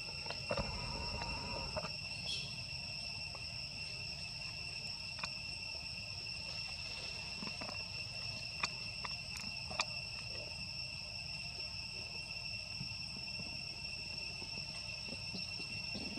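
Insects calling in a steady, unbroken high-pitched drone, with a few faint clicks and rustles.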